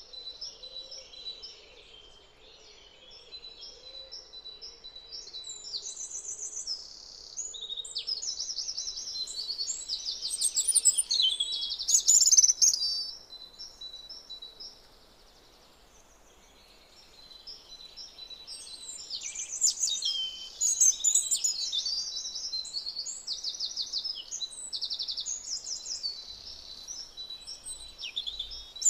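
Songbird singing long, high-pitched songs of rapid trills and chirps, in two runs of several seconds with a pause of a few seconds between.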